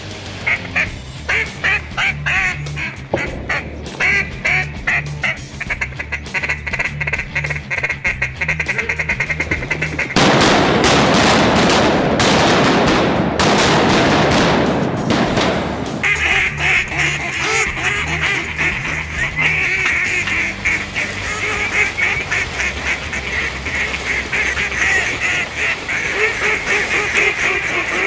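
Mallard duck call blown in fast quacking runs that speed up, broken by about six seconds of loud rushing noise, then fast steady chattering quacks, over background music with a bass line.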